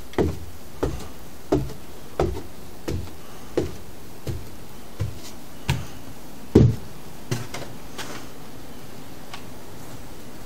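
Footsteps on the bare wooden stairs and subfloor of an unfinished wood-framed building, a steady tread of about one step every 0.7 seconds. The heaviest step lands near two-thirds of the way through, and the steps stop soon after.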